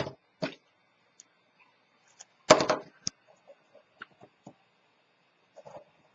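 Scattered clicks and knocks of craft tools and a cardstock box being handled on a cutting mat, the loudest a knock about two and a half seconds in. Soft paper rustling near the end.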